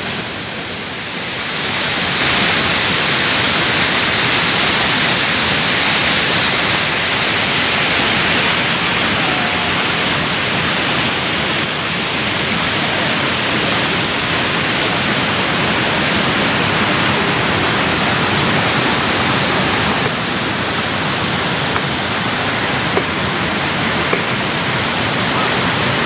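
Fast-flowing stream rushing over rocks below a waterfall: a steady, loud rush of water that grows louder about two seconds in.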